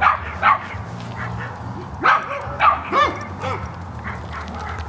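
About six short, yelping animal calls that rise and fall in pitch, in two clusters, over a steady low hum.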